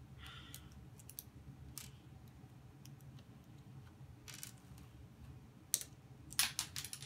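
LEGO bricks being pulled apart and handled: scattered small plastic clicks, with a few louder snaps near the end.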